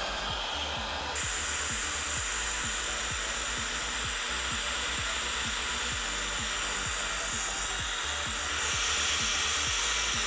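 Hot-air heat gun blowing steadily, shrinking heat-shrink tubing over a soldered wire joint; its hiss turns brighter about a second in.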